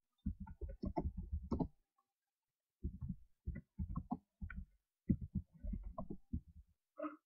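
Computer keyboard being typed on, picked up by the microphone: three quick runs of clicks and thuds with short pauses between them.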